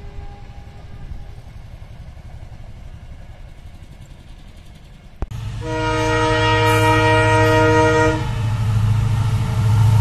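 Diesel locomotive horn sounding for about two and a half seconds from an approaching EMD WDG4 freight locomotive, several notes at once. Under it runs the low steady drone of the two-stroke diesel engine, growing louder as it nears. A faint low rumble fills the first half, before an abrupt cut.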